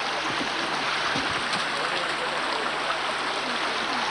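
Steady rushing of a stream flowing over rocks, with faint voices of people nearby.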